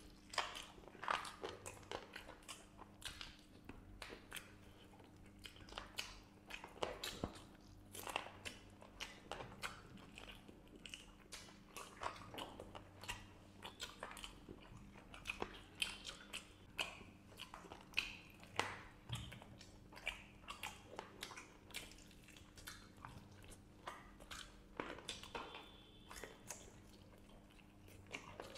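Two people chewing and biting into masala-fried chicken legs close to lapel microphones: a stream of irregular smacking, crunching mouth sounds, with a faint steady hum underneath.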